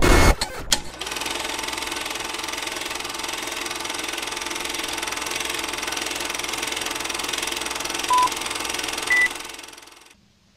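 Film-projector sound effect: a steady mechanical clatter with hiss under an old-film countdown leader, opened by a loud hit. Near the end come two short countdown beeps about a second apart, the second higher, and then the clatter fades out.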